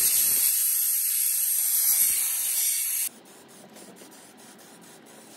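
Compressed-air blow gun hissing steadily as it blasts the cylinder barrel's cooling fins dry, cutting off suddenly about three seconds in. Faint clicks follow in the quiet.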